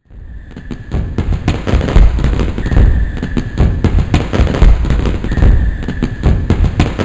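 Dense, continuous crackling and banging of fireworks over a deep rumble, starting abruptly. A brief high steady tone comes back about every two and a half seconds.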